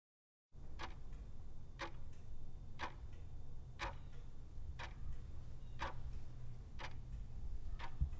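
Clock ticking once a second, eight sharp ticks over a low steady hum.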